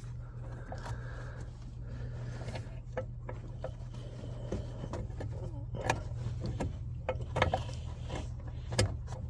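Scattered small clicks and scrapes of an H7 LED bulb and its wire retaining spring being worked into a car's headlight housing by hand, over a steady low hum.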